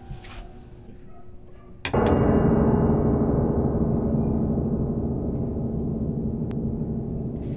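A single loud gong-like hit, a horror-film sound effect, strikes about two seconds in and rings on, fading slowly.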